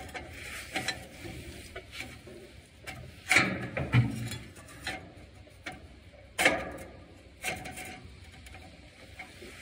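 Scattered metal clicks and knocks as bolts are fitted into a tractor's sheet-metal dash panel, with the loudest knocks about three and a half and six and a half seconds in.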